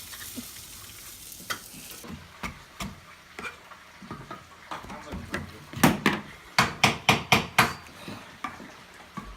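A utensil stirring and knocking in a cooking pot: scattered clicks, then a quick run of about seven sharp knocks a little past the middle. A faint sizzling hiss cuts off about two seconds in.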